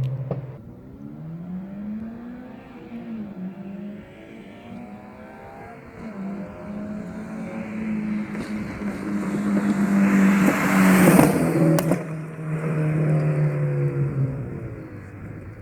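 Toyota GT86 / Scion FR-S flat-four boxer engine revving, its pitch climbing and dropping several times. The loudest stretch comes about ten to eleven seconds in, with a rushing hiss over the engine note.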